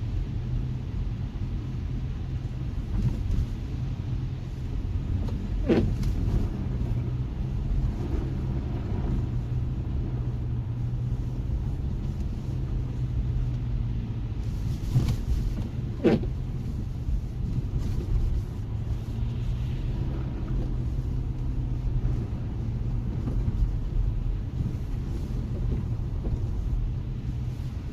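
Steady low rumble of outdoor street ambience, with two brief sharp sounds about six and sixteen seconds in.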